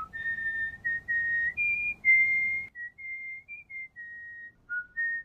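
A person whistling a slow tune through pursed lips: a string of short held notes, each one clear pure tone, stepping up and down in pitch with small slides between some of them. A faint low background hum sits under the first half and then stops.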